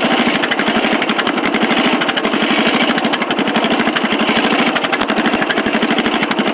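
Riding lawn mower engine running steadily and loud through a custom exhaust, a fast, even stream of firing pulses.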